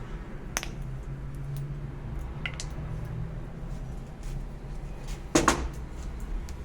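Light metallic clicks and clinks of tools or parts being handled, with a sharp double clank about five seconds in, over a low steady hum.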